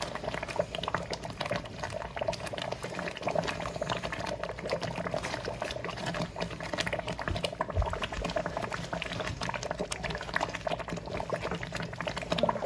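Thick shiro (chickpea-flour stew) boiling in a pot, bubbling with a steady run of small pops and splutters.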